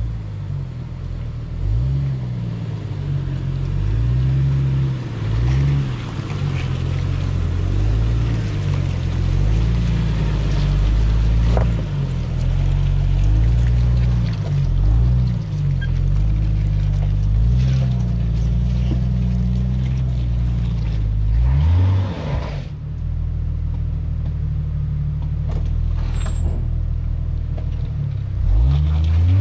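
Small Jeep's engine working under load on a rough off-road obstacle, its revs rising and falling again and again. About three quarters of the way through, the revs drop briefly, then climb again near the end.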